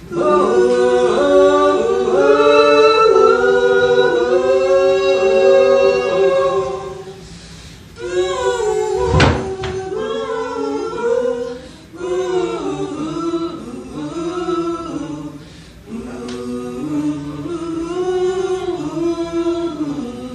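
Several voices singing a cappella in harmony, in phrases of a few seconds with short pauses between them. A single heavy thump sounds about nine seconds in.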